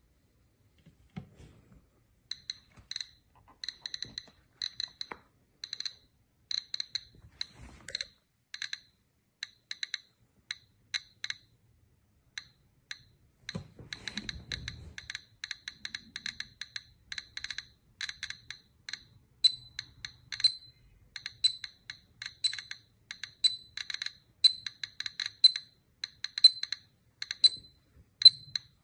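Rapid light, high-pitched ticks, each ringing at the same pitch, several a second. They are sparse at first and come denser and louder in the second half, with a brief low rumbling thud about halfway through.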